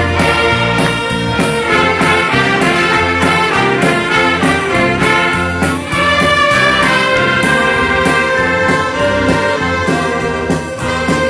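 Large church band playing an instrumental piece: trumpets and trombones lead over violins, accordion and tuba, with a drum kit keeping a steady beat.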